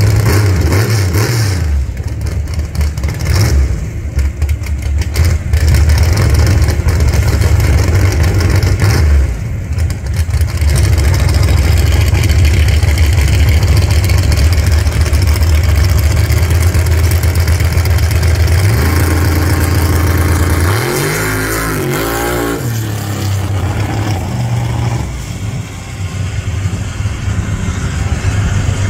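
Fox-body Mustang drag car's engine running loud at the starting line: choppy and uneven for the first few seconds, then a steady heavy rumble. About two-thirds of the way through the pitch sweeps up and down as the car launches, and the sound then drops lower and quieter as it runs off down the strip.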